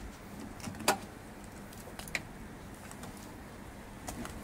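Clicks from a Renault Twingo's bonnet catch as it is released and the bonnet is lifted: one sharp click about a second in, a softer one about a second later.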